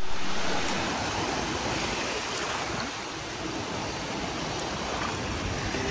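Small sea waves breaking and washing in over a muddy shore as foaming surf, loudest at the start and easing after a second or so.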